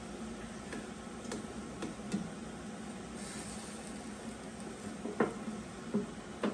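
Kitchen tongs clicking and knocking against the drawer of a Ninja dual-zone air fryer as steaks are turned over: about six short sharp knocks, the loudest near the end, over a steady background hum.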